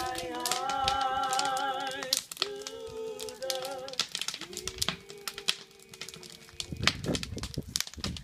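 A person's voice singing or crooning long held notes with a wavering vibrato, moving through several pitches with short breaks. Many sharp clicks and crackles run through it.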